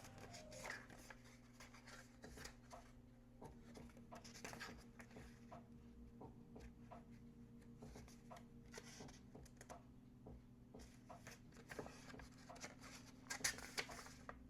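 Faint rustling and soft ticks of paper pages being turned and handled in a book, a little louder near the end, over a faint low steady hum.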